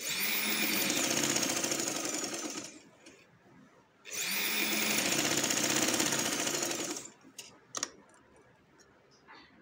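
Yashica domestic sewing machine running, stitching a seam in two runs of about three seconds each with a short pause between. A few faint clicks near the end.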